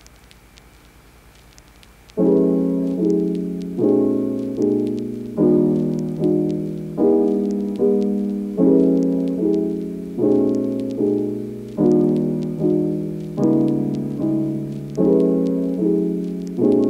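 A quiet gap of about two seconds, then background solo piano music begins: gentle repeated chords at an even pace, each one dying away before the next.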